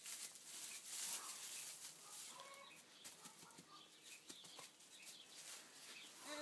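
Faint rustling and shuffling in straw bedding as a newborn lamb moves about, with a couple of brief, faint animal calls about two and a half seconds in.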